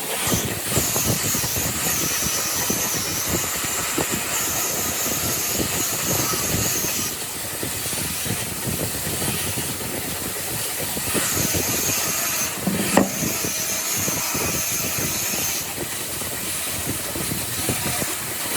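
A power tool working wood, its high whine wavering in pitch through two long runs under a rough, crackling noise, with one sharp knock in the middle.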